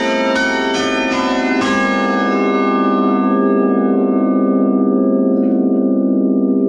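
A ring of ten church bells, tenor about 10 cwt, heard from inside the bell chamber: the last few strokes of change ringing in the first couple of seconds, then the strokes stop. The bells' deep hum lingers with a slow wobble as the brighter overtones die away.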